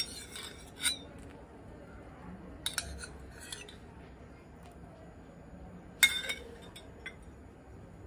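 A metal spoon clinking against a small glass bowl as lemon juice is spooned out and added to hot milk to curdle it. A few sharp clinks come at uneven intervals, the loudest about six seconds in.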